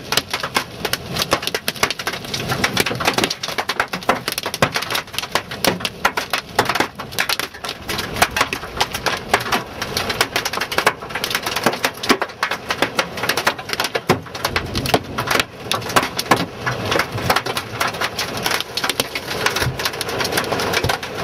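Large hailstones, about 4 to 5 centimetres across, pelting the roof and windscreen of a 4WD, heard from inside the cabin. The hail makes a dense, irregular clatter of hard knocks over the hiss of heavy rain.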